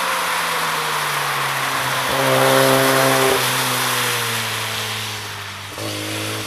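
Mazda RX-7 FD's 13B-REW sequential twin-turbo rotary engine running at speed, its note falling slowly. It is loudest about two to three seconds in, over a steady hiss.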